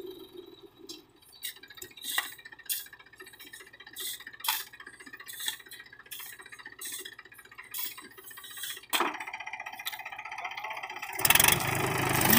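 Background music with sharp clicking beats about every half second, becoming much louder about a second before the end.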